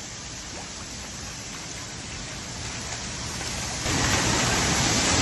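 Heavy rain pouring down as a steady hiss, getting noticeably louder about four seconds in.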